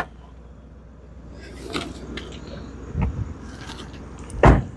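A light knock about three seconds in, then a louder, dull thump near the end.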